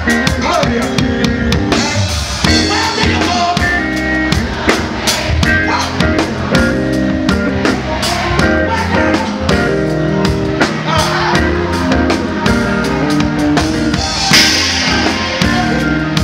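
Live reggae band playing through a concert PA, with a steady drum-kit beat, bass and keyboards. A singer's voice runs over the band.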